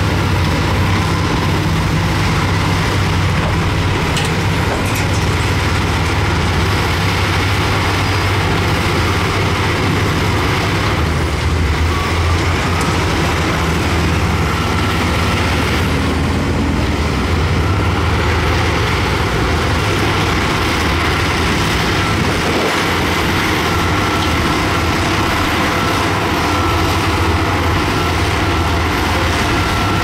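Diesel engine of heavy earthmoving machinery running steadily, with a deep, constant engine note.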